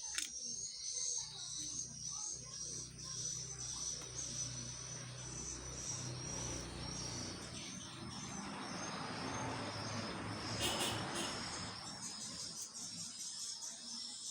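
Insects trilling steadily at a high pitch. Under them runs a low hum during the first half, and a broad rush of noise rises and fades in the middle.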